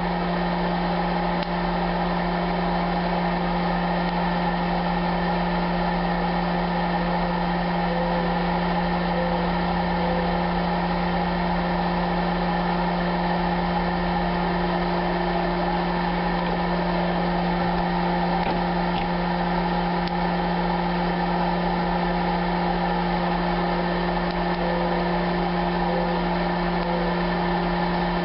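Toastmaster 6203 hot-air popcorn popper running steadily with a constant fan hum as it roasts coffee beans, with a few faint pops of the beans' first crack over it.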